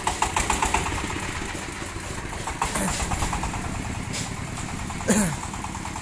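A 26 HP single-cylinder diesel engine chugs steadily as the vehicle drives off, easing slightly in level. A short falling shout comes about three seconds in and a louder one near the end.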